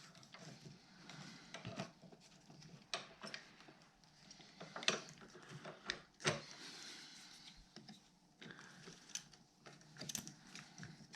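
Faint, scattered clicks and taps of hand tools working at a snowmobile's plastic throttle block housing while it is pried at, with a short scraping stretch about halfway through.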